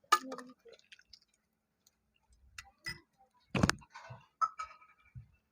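Scattered light clicks and taps, with one louder knock about three and a half seconds in.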